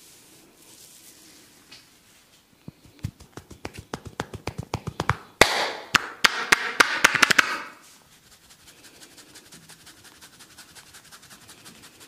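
Percussive head massage: the barber's joined palms striking the top of a man's head over the hair, a quickening run of hollow taps that grows louder, is loudest in the middle with a rustle of hair under the strikes, then falls off into soft, quick tapping.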